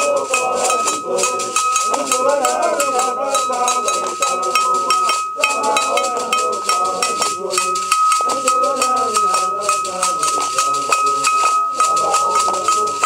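A group of men singing or chanting together over rhythmic hand claps and rattling percussion, with a bell rung continuously so that one steady high ringing tone sounds throughout.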